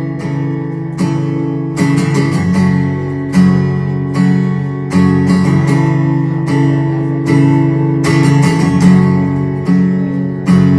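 Acoustic guitar strummed in an instrumental break between sung verses, steady chords with regular strokes.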